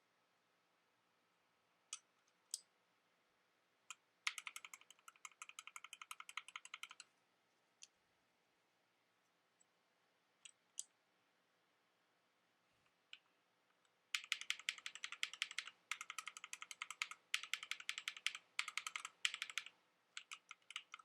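Mechanical keyboard switches being typed on: a few single key presses, a quick run of rapid typing from about four to seven seconds in, a few more lone presses, then a longer run of fast typing from about fourteen seconds in.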